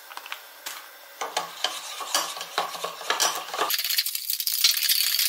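Wire whisk stirring thickener powder into cold water in a small bowl. It taps irregularly against the bowl, then from about three and a half seconds in it turns into a faster, continuous clatter.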